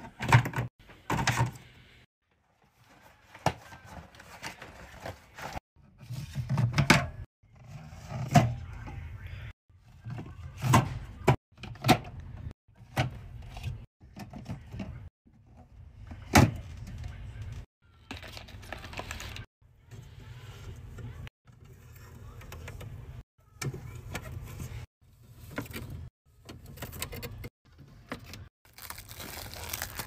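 Drinks being loaded into a mini fridge: cans and bottles clinking and knocking against each other, the plastic shelves and the wire door rack. Short bursts of handling noise that stop and start abruptly.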